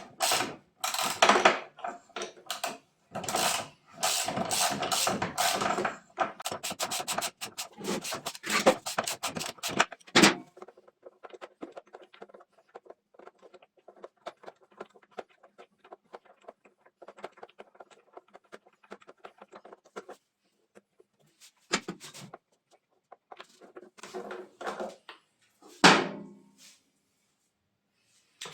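Hand-tool work and handling of metal parts: about ten seconds of rapid scraping and rubbing strokes, then faint quick ticking, then a few separate knocks near the end.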